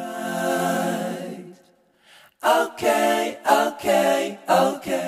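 Singing voices in vocal music: one long held note that fades, a brief break, then a string of shorter sung phrases.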